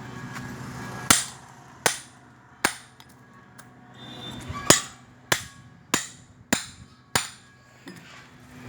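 Hammer blows on a scrap fridge compressor as it is broken open: eight sharp metal strikes, each with a brief ring. Three come about a second apart, then after a short pause five more follow a little faster.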